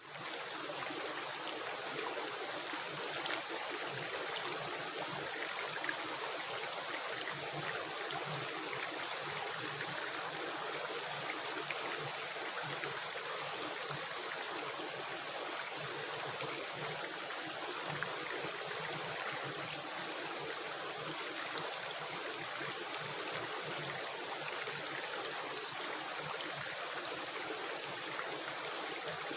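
Running stream water rushing and gurgling, a steady, unbroken wash of sound.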